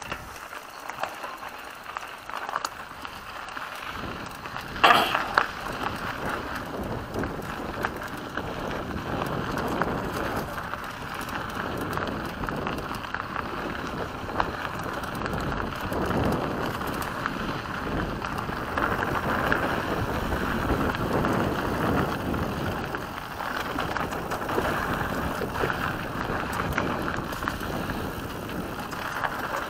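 Mountain bike ridden fast down a dirt and gravel singletrack, heard from a camera on the rider: tyres crunching and the bike rattling over the rough ground, mixed with wind noise on the microphone. It grows louder over the first few seconds as speed builds, with one sharp knock about five seconds in.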